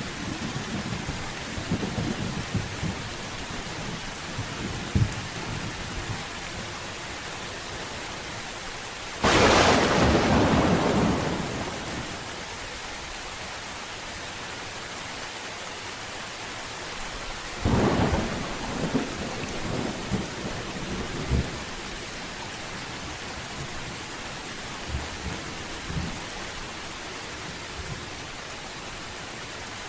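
Steady rain with thunder: low rumbles at first, a sudden loud thunderclap about nine seconds in that rolls on for around three seconds, and a second clap near eighteen seconds followed by several fainter rumbles.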